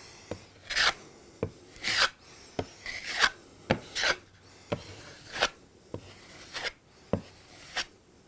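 Flexible steel putty knife scraping pink DryDex spackling across a drywall patch on a textured wall, in short repeated strokes nearly two a second, each a brief scrape with a sharp start.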